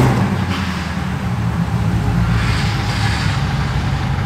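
Supercharged 5.4-litre V8 of a Ford SVT Lightning pickup running steadily at low speed as the truck rolls in. It is misfiring, a catalyst-damaging misfire that flashes the check-engine light and that the scanner then reads as a cylinder 3 misfire.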